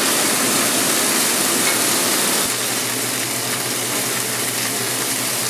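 Tomahawk steaks and butter-topped smashed potatoes sizzling steadily on a hot flat-top griddle as the steaks are turned with tongs. The sizzle eases slightly from about halfway.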